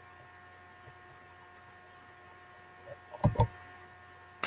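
Faint steady electrical hum made of several held tones. About three seconds in come two short, low thumps close together, and near the end a single sharp click.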